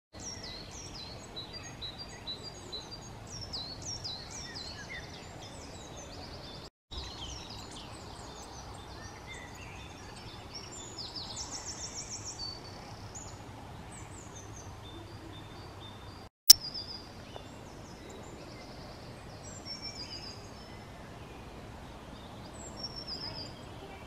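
Several small songbirds chirping and singing, with short high, often falling notes and trills over a steady outdoor background hiss. The sound drops out briefly twice, and a sharp click comes about sixteen seconds in.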